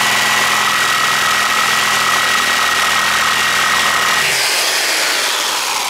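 Electric power tool running at full speed, a loud steady whir that starts suddenly. About four seconds in its motor tone drops away and the sound fades as the tool is released and winds down.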